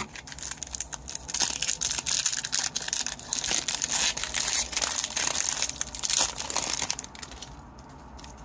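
Foil wrapper of an Upper Deck hockey card pack crinkling as it is torn open and handled: a dense crackle that dies down about seven seconds in.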